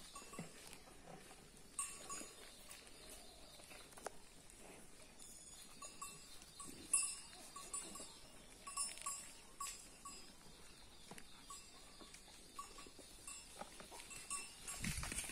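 Faint, irregular clinking of bells on grazing cattle.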